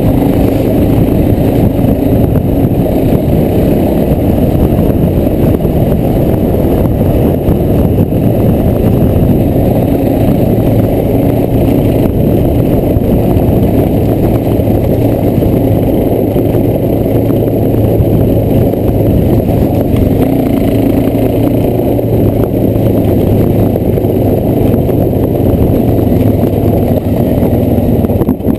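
Suzuki LT-Z400 quad bike's single-cylinder four-stroke engine running under way on a rough track, heard from a helmet-mounted camera, its note rising and falling a little with the throttle.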